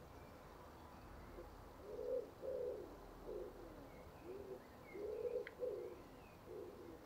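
A pigeon cooing faintly in a run of low, repeated coos that begin about two seconds in, with a few faint higher chirps from a small bird.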